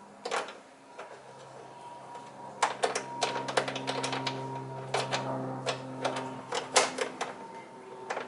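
A quick, irregular run of sharp metallic clicks and knocks, hood gas-strut hardware being handled and pushed onto its mounting, over a steady low hum.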